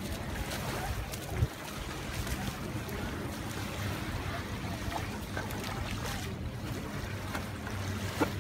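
Wind rumbling on the microphone over small waves washing onto a sandy shore, with two short thumps: one about a second and a half in, one near the end.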